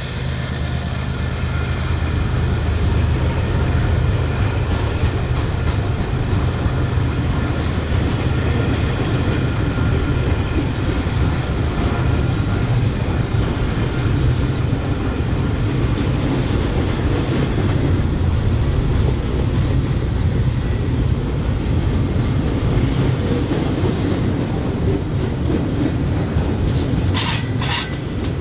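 BNSF freight train cars rolling past at steady speed, a continuous heavy rumble of wheels on rail, with a few sharp clicks near the end.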